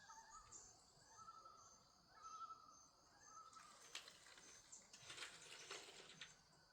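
Faint outdoor ambience: distant birds chirping and insects trilling, then a few seconds of rustling and light clicking from about halfway through.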